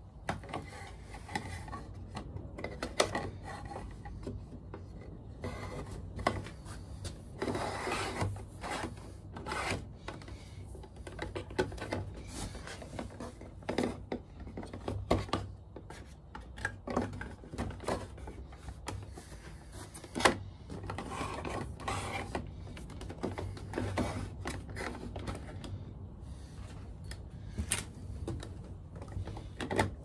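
PVC-sheathed three-core-and-earth cable being pushed and pulled through plastic dry-lining back boxes: rubbing and scraping with irregular clicks and knocks.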